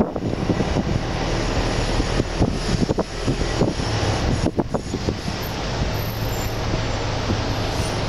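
Loud road and engine noise of a moving car with wind buffeting the microphone: a steady rush over a low hum, with several gusts in the first five seconds.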